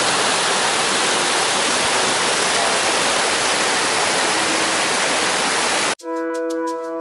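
Loud, steady rush of a waterfall. About a second before the end it cuts off abruptly and electronic music with a held chord comes in.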